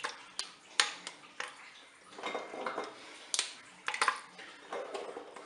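Chunks of dark chocolate being dropped by hand into milk in a Cookeo multicooker's cooking bowl: irregular sharp clicks and knocks of the pieces and fingers against the pot, with some soft rustling in between.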